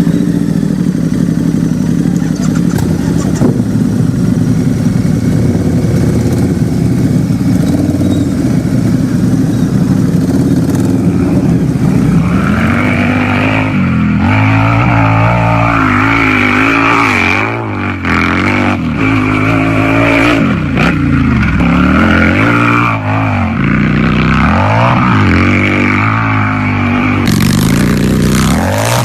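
Harley-Davidson motorcycle's V-twin engine idling steadily, then, from about twelve seconds in, revved again and again, its pitch rising and falling with each blip of the throttle.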